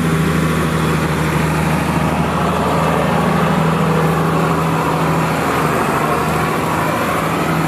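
Large farm tractor's diesel engine running steadily at an even, low pitch.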